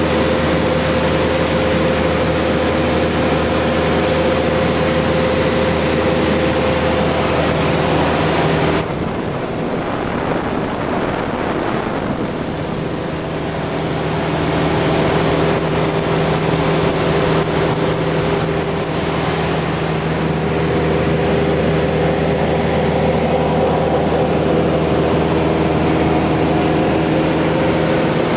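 Cessna 177B Cardinal's four-cylinder Lycoming engine and propeller droning steadily, heard inside the cabin with a rush of wind. About nine seconds in, the sound abruptly turns duller and a little quieter, then builds back over the next several seconds.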